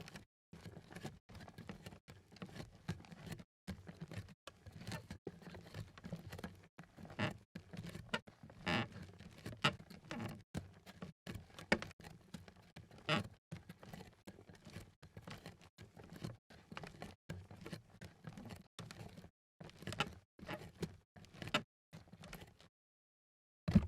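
Barefoot footsteps on a creaky floor: many soft, irregular footfalls, several a second, pausing briefly near the end.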